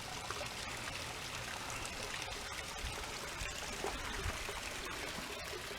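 Steady splashing trickle of a small waterfall, a little water cascading down a granite rock face into a pool.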